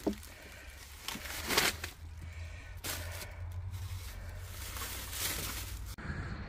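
Thin plastic shopping bags rustling and crinkling as they are handled, in several short bursts, over a low steady hum that stops near the end.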